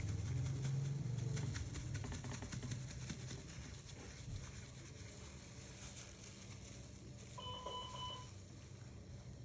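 Low rumbling noise in the first second and a half, then a short electronic beep, a quick run of high pips lasting under a second, about seven and a half seconds in.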